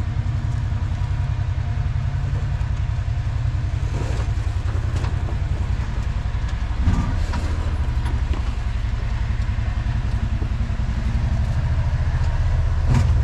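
Off-road vehicle engine running steadily with a deep rumble while a Kawasaki side-by-side is winched up a steep rock face. There is a brief knock about seven seconds in.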